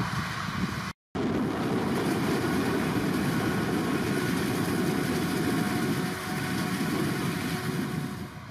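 Heavy farm machinery running during a maize silage harvest: a dense, steady engine and machine noise. It cuts out for a moment about a second in.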